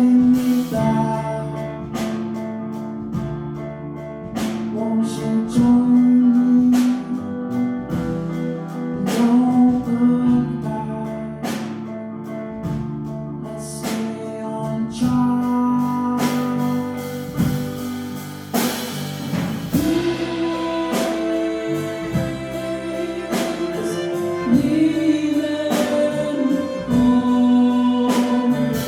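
Music: a song with singing over held instrumental notes, with a sharp percussive strike about every second.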